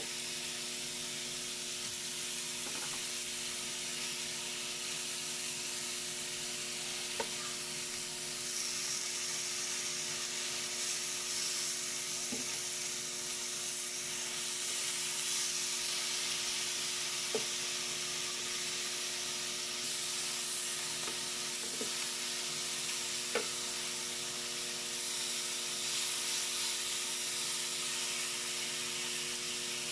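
Thin slices of meat sizzling steadily on an electric grill plate over a steady hum, with a few sharp clicks as a metal fork knocks against the grill while turning them.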